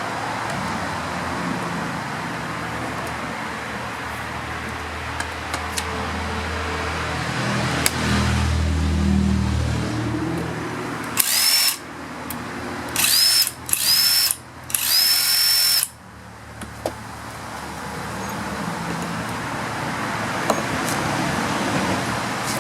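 Ryobi 18V cordless impact driver run in four short bursts about halfway through, its motor whine climbing at each trigger pull and then holding. A steady low rumble lies underneath.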